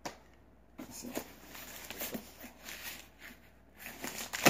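Cardboard shipping box being forced open by hand: scraping and rustling of cardboard and packing tape, then one loud sharp rip just before the end.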